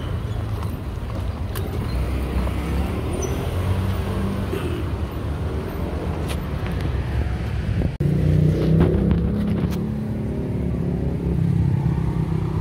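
Road traffic: motor vehicle engines running and passing with a steady low rumble, a louder engine hum after about two-thirds of the way through, and a few light clicks of handling.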